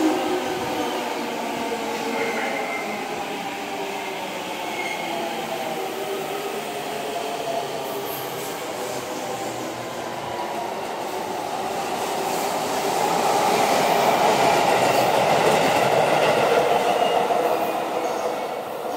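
JR East 209 series 1000-subseries electric train slowing into a station. Its motor whine falls steadily in pitch, then a louder braking and wheel noise swells for the last few seconds and dies away as the train comes to a stop near the end.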